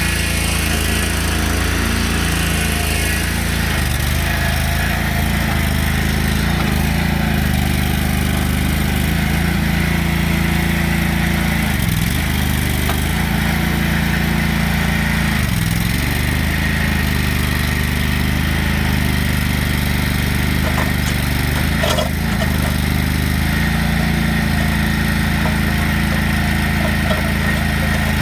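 Engine of a 2003 Lay-Mor LB-30 backhoe running steadily, its pitch dipping briefly twice, about twelve and fifteen seconds in.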